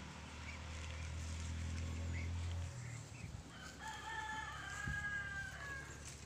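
A rooster crows once, a single long call of about two seconds beginning a little under four seconds in. Before it, a low steady engine hum runs and stops about two and a half seconds in.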